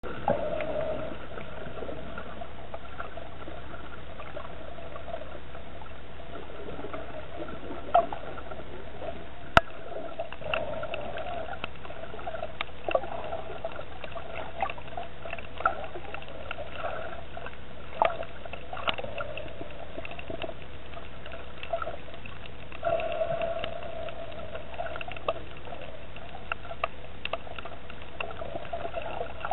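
Underwater ambient sound picked up by a submerged camera: a steady muffled water rush with scattered clicks and crackles, and two sharper clicks about a third of the way in.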